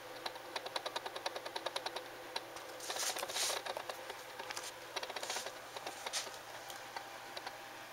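A small animal scratching and digging inside a wall, heard faintly through it. A quick run of small scratching clicks, about ten a second, is followed by a few longer rasping scrapes.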